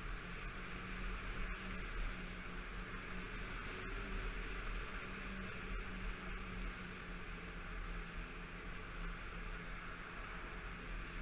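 Snowmobile engine running steadily at cruising speed, a constant drone with a hiss of track and snow over it, heard close up from the sled itself.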